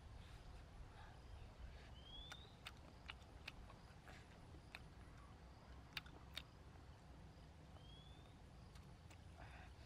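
Near silence: faint outdoor ambience with a bird's short rising whistle, heard twice, and a few scattered faint clicks.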